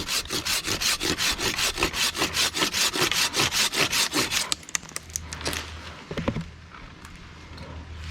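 Handsaw cutting through a tulip tree limb in rapid back-and-forth strokes, about five a second, stopping about four and a half seconds in. A few light knocks follow.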